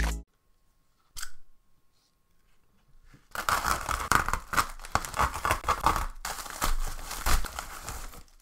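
A padded shipping envelope being slit with a knife and torn open by hand: a dense run of ripping and crinkling from about three seconds in, after a single brief rustle about a second in.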